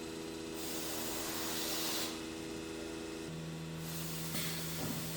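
Heliner H-1228AD nesting CNC router machining. Its motors make a steady whine that drops to a lower tone about three seconds in, with two stretches of hissing noise over it.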